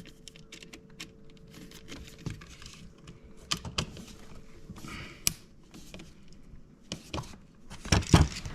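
Light clicks, taps and rattles of a screwdriver working on a USB wall receptacle, tightening the compression connectors down on the wires, with a sharper knock about five seconds in and two more near the end.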